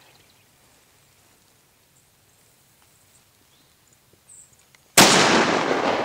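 A single hunting rifle shot about five seconds in, sudden and loud, after near silence. It is followed by a noisy tail with scattered knocks as the camera is jolted.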